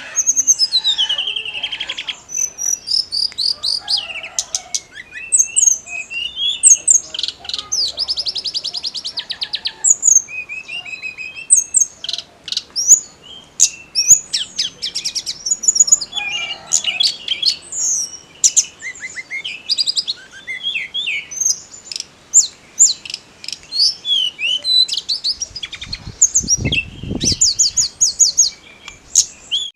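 Tledekan gunung singing in full voice: a fast, varied stream of high chirps, rapid trills and sliding whistles. A short low rumble comes in near the end.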